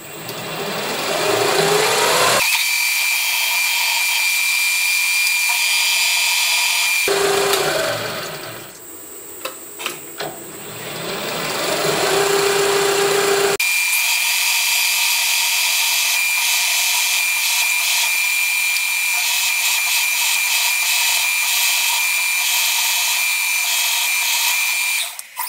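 Milling-machine spindle driving a twist drill into round metal bar stock: a pilot hole, to be opened up with an 8.9 mm drill. It is a steady high whine with cutting hiss. It dies down for a few seconds in the middle while chips are brushed from the hole, then runs again and stops just before the end.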